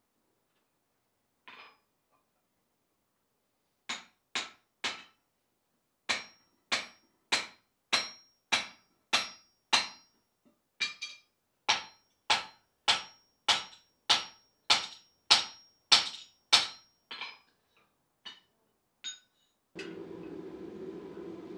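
Hand hammer striking a drift driven through a hot hole in a thick iron bar on the anvil: about twenty metal-on-metal blows, roughly one every 0.6 s, each with a brief ring, then a few lighter taps. Near the end a steady rushing hum from the forge comes in suddenly.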